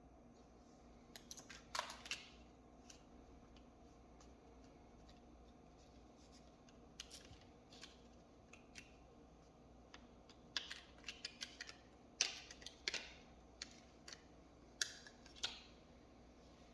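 Scattered small sharp clicks and taps, coming in clusters and busiest in the second half, from a laptop being handled and worked on during a RAM upgrade.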